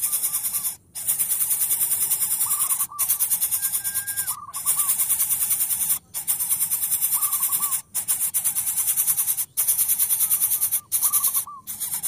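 A dense, high-pitched insect-like buzz, pulsing rapidly, with short warbling bird-like calls about every one to two seconds. The whole sound cuts out briefly several times.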